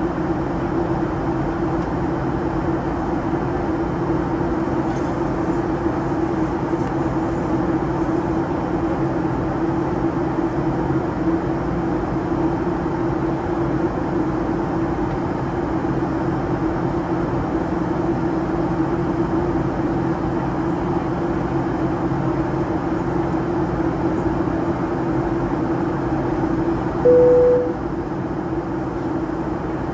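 Boeing 737 passenger cabin in flight: a steady drone of engine and airflow noise with a constant low hum. A short single-tone chime sounds about 27 seconds in.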